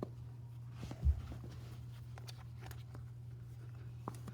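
Faint handling sounds: a few light clicks and one soft low thump about a second in, over a steady low hum.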